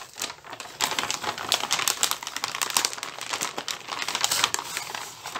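Clear plastic packet crinkling as a hand rummages inside it: a dense run of small crackles that starts about a second in and eases off near the end.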